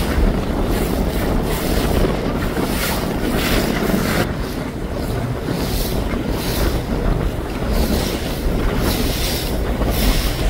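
Wind buffeting the microphone over water rushing and splashing around a sailboat moving through waves, with irregular gusts and splashes.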